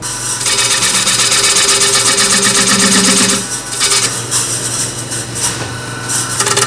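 Narrow parting tool cutting a groove into a spinning jatoba (Brazilian cherry) cutting board on a wood lathe: a rough cutting noise over the lathe's steady hum, starting suddenly and easing off briefly about halfway through.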